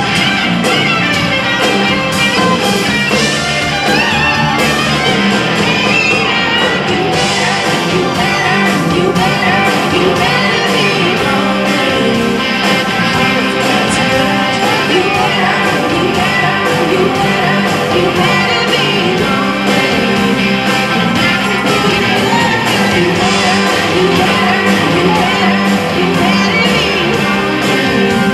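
Live blues-rock band playing: distorted electric guitar and drum kit, with a woman singing.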